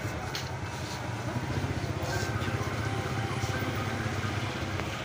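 A small engine idling steadily, a low, fast-pulsing hum, with faint background voices.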